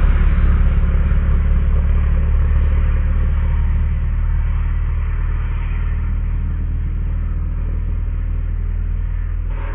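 Suzuki GSX-R sport bike's engine, slowed down to a deep, steady rumble that fades gradually as the bike rides away.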